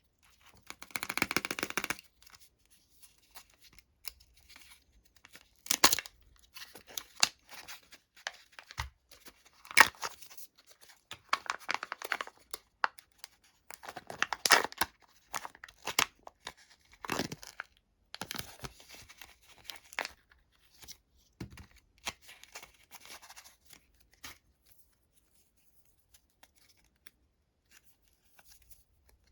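Candy wrappers being torn open and crinkled by hand: a longer tear about a second in, then a run of sharp rips and crinkles that stop about three-quarters of the way through.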